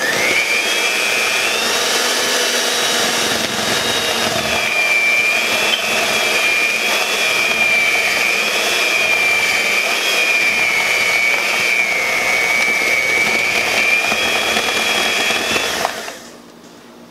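Electric hand mixer running with its twin beaters in a bowl of cookie dough as flour is mixed in: a steady motor whine that wavers slightly in pitch, switching off about sixteen seconds in.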